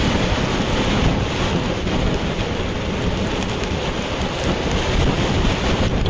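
Heavy rain with strong wind: a steady, dense rush of rain, with gusts buffeting the microphone in an uneven low rumble.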